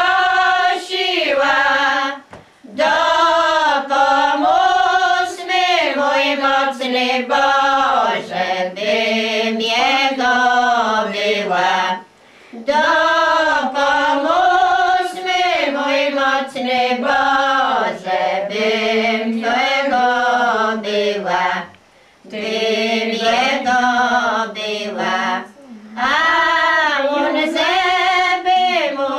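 A group of village women singing a traditional Polish wedding-procession song a cappella, in long drawn-out phrases broken by short pauses for breath.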